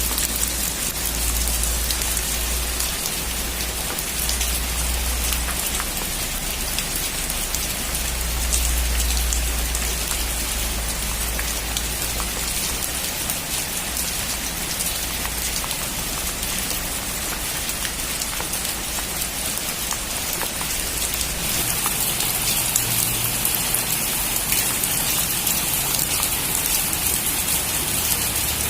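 Heavy rain falling on a metal roof: a steady hiss dotted with sharp ticks of individual drops, over a low rumble. The rain grows heavier about two-thirds of the way through.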